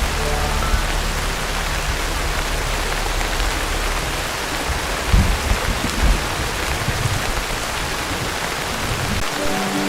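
Heavy rain drumming steadily on a tin roof, a dense even hiss, with a couple of heavier thuds about five and six seconds in.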